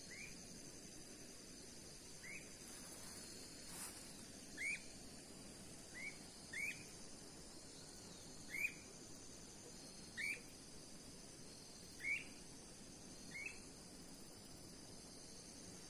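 Faint, short rising chirps from a calling animal, about ten of them, one every one to two seconds, over a steady high-pitched drone of insects.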